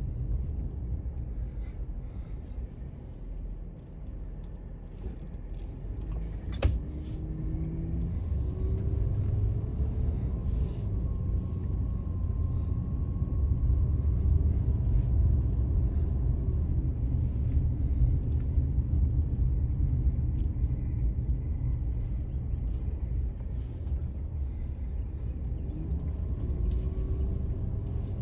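Car driving slowly, heard from inside the cabin: a steady low rumble of engine and road, with one sharp click about six and a half seconds in.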